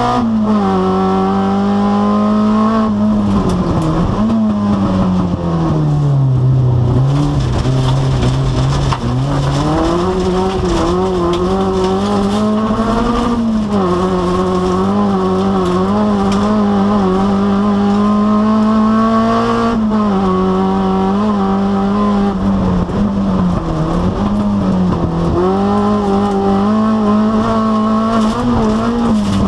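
Rallycross car's engine heard from inside the cabin under racing load, revs held high for long stretches, then falling for several seconds and climbing back up as the car slows and accelerates through corners. Tyre and track noise runs underneath.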